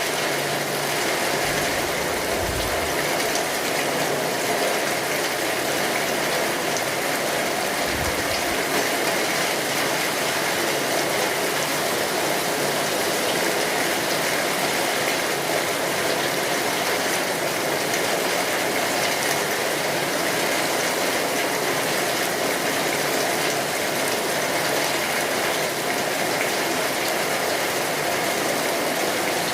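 Steady rain drumming on a tin roof, mixed with the crackle of a wood fire. Two short low thuds come about two and eight seconds in.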